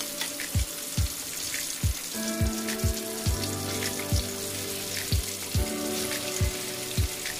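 Halved jengkol (dogfruit) sizzling as they deep-fry in hot oil in a wok, under background music with a steady beat.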